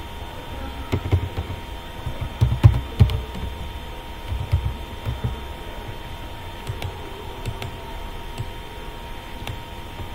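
Computer keyboard typing in scattered bursts of keystrokes, heaviest in the first half, over a steady electrical hum with a faint constant whine.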